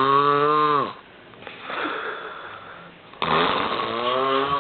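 A man snoring loudly in a deep, alcohol-fuelled sleep. A long buzzing snore ends about a second in, then comes a quieter breath out, and a second loud snore starts about three seconds in.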